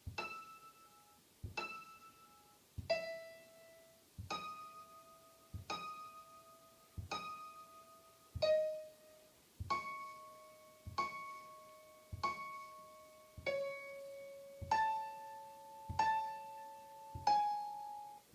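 Computer-generated piano notes played one at a time, about one every second and a half, at varying pitches, each ringing and fading before the next. Each note is triggered by touching a Play-Doh pad wired to a Makey Makey running Scratch.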